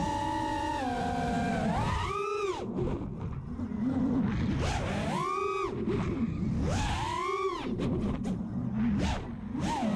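FPV racing quadcopter's DYS Fire 2600kv brushless motors and props whining in flight. The pitch swoops sharply up and back down with each throttle punch, about three times, over rough wind noise.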